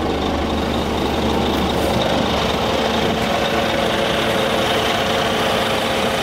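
Scania R400 truck's inline-six diesel engine idling steadily.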